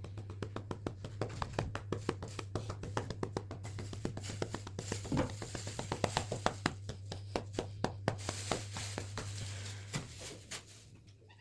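A hand rapidly patting a cat's rump, several quick slaps a second in a steady run that stops near the end, over a low steady hum.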